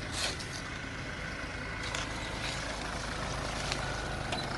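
Hyundai Terracan SUV's engine running at low revs as it crawls down a steep dirt trail, growing slowly louder as it draws near. A few faint clicks are heard along the way.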